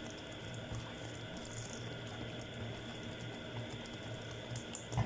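Thickened seafood filling bubbling softly in a pot on the stove, a steady fine crackle over a low hum.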